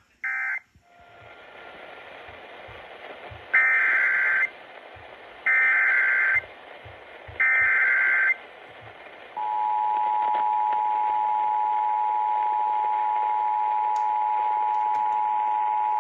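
Emergency Alert System signalling over radio hiss. A short end-of-message data burst comes first, then three loud one-second SAME header bursts of warbling digital data about two seconds apart. From about two-thirds of the way in, the steady two-tone EAS attention signal holds to the end.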